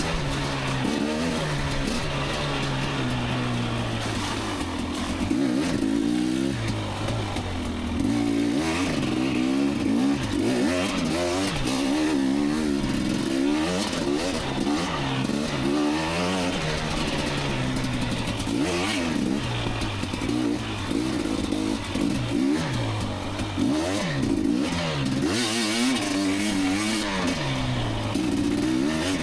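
KTM 250 XC two-stroke dirt bike engine revving up and down as it is ridden through a trail, the pitch rising and falling every second or two.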